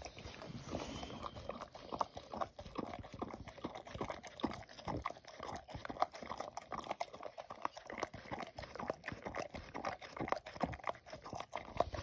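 Dog licking and eating sardines straight out of an open Bumble Bee sardine tin held in a hand: a rapid, irregular run of wet smacks and clicks of tongue and mouth against the can.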